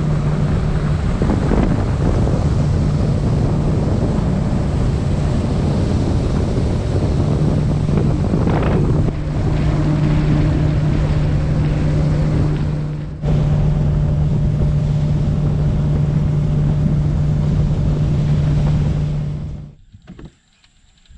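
A skiff's outboard motor running steadily at speed, with heavy wind buffeting on the microphone. It drops away abruptly near the end.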